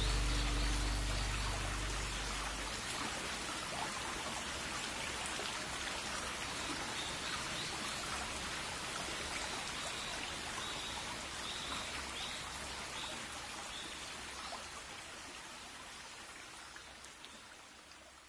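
Rain ambience: an even hiss of falling rain with scattered drops and a few short, high chirps, slowly fading out. The last low notes of a music track die away in the first two seconds.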